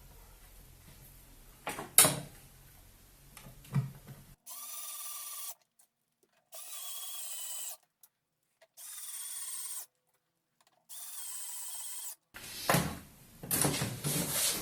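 Reassembly handling noises: a couple of sharp knocks as parts are set in place, then four short bursts of a small power tool whirring, each cut off abruptly, followed by louder rattling and knocking as the pieces go back together.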